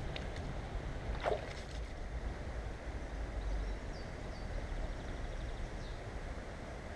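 Wind rumbling on the microphone over water noise, with one short sharp sound, like a splash or knock, about a second in.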